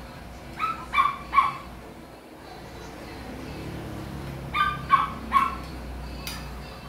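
A small dog barking offscreen: three quick high-pitched yaps about a second in, then three more about four seconds later.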